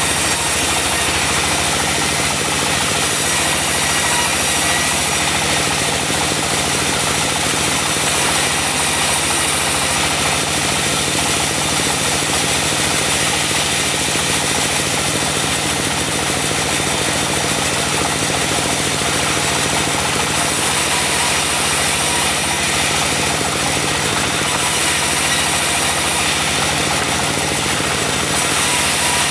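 Diesel engine driving a portable band sawmill, running steadily, with the noise of the saw cutting mahogany over it that swells and eases every few seconds.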